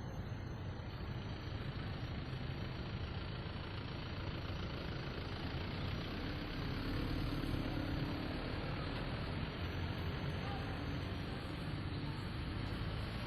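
Daihatsu Gran Max blind van running, a steady engine and road rumble that swells slightly about halfway through.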